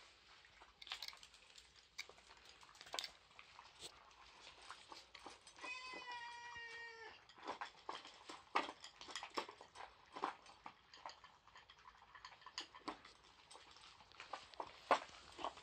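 Several dogs eating dry kibble from bowls: scattered sharp crunches and clicks of kibble and bowls. About six seconds in, a single drawn-out animal cry lasting about a second and a half, falling slightly in pitch.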